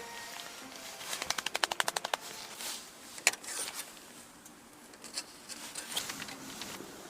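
A rapid, even run of about a dozen sharp clicks lasting about a second, then a few scattered single clicks, the loudest one about three seconds in.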